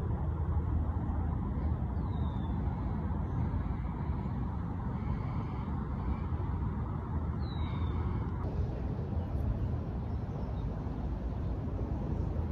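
Steady low outdoor rumble with two short, high, falling chirps, one about two seconds in and one near seven and a half seconds.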